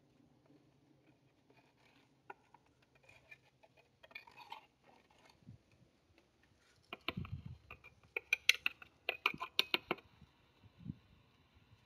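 A metal hand trowel scraping and tapping as crumbly worm castings are scattered onto potting soil, with a soft patter of falling compost. A cluster of louder scrapes and clicks comes in the second half.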